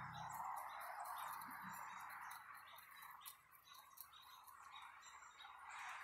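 Black-tailed deer crunching bird seed from a hand: faint, irregular small clicks over a steady hiss.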